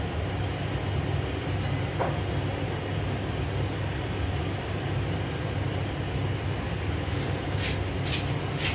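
Kitchen range hood exhaust fan running with a steady low hum over a pan cooking on the stove. A few light clicks or clatters come near the end.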